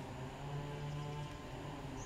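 Soft background music with held low notes at a steady level.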